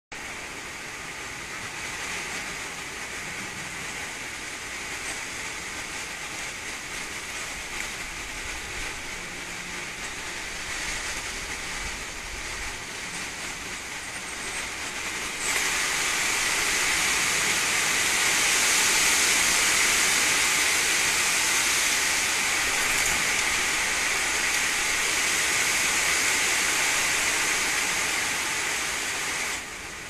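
A steady hiss of noise with no clear bird calls. It jumps sharply louder and brighter about halfway through and drops back just before the end.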